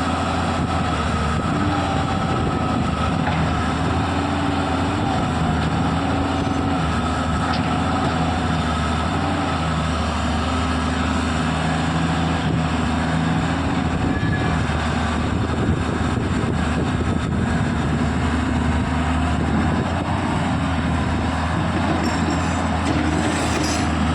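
Tata Hitachi EX210 hydraulic excavator's diesel engine running steadily, its note shifting slightly up and down every few seconds.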